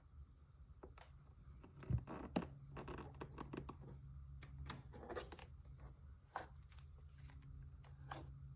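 Faint steady low hum and static from a Bose S1 Pro speaker fed from a Bose Sub2, an unwanted noise in that connection. Scattered clicks and scraping handling noises come on top, mostly from about two to five seconds in.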